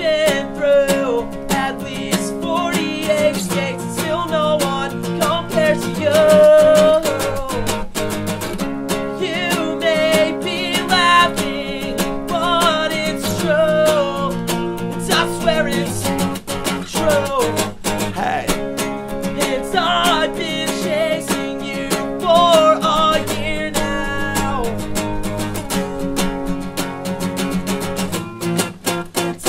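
Live acoustic pop-punk song: an acoustic guitar strummed in steady chords under a male voice singing the melody.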